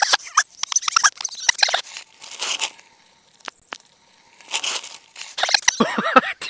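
Mountain bike riding over a dry dirt and gravel trail: tyres crunching and reeds brushing against the rider, in irregular bursts with sharp clicks. It goes briefly quiet about halfway through.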